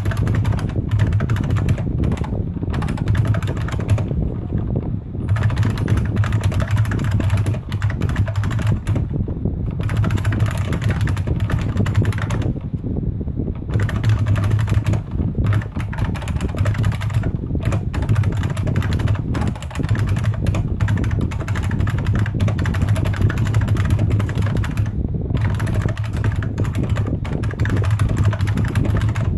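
Continuous typing on a Unicomp Ultra Classic buckling-spring keyboard: a dense stream of key clicks with a few short pauses, over a steady low hum.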